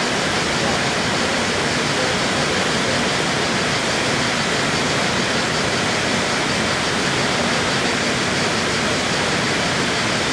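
Small waterfall plunging into a deep rock pool: a steady, even rush of falling and splashing water.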